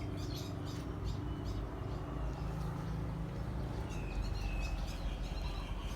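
Small birds chirping and calling repeatedly over a steady low rumble.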